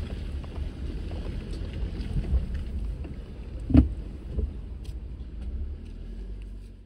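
Off-road vehicle driving over a rough trail: a steady low engine and road rumble, with a sharp knock about four seconds in and a lighter one just after.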